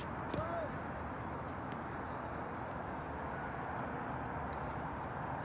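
Steady outdoor background noise, with a few faint clicks and a short squeak about half a second in.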